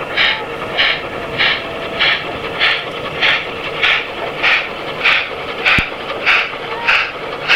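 Exhaust beats of unrebuilt Bulleid Battle of Britain class three-cylinder 4-6-2 steam locomotive No. 34072 working hard on the approach: a slow, even chuff, a little under two beats a second, each beat a sharp blast.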